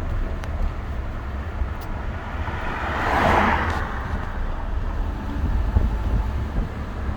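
Road traffic: a car passing by, its tyre and engine noise swelling and fading about three seconds in, over a steady low rumble.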